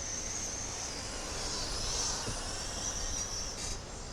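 Radio-controlled race trucks lapping a small track, their motors giving a high whine that rises and falls in pitch as they pass, loudest about two seconds in.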